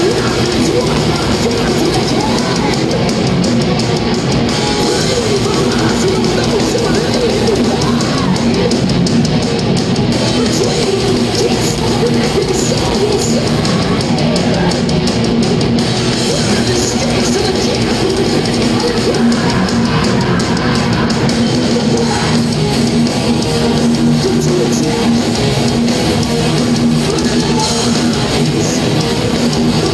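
Live heavy metal band playing loud and without a break: distorted electric guitars over a drum kit, heard from within the audience.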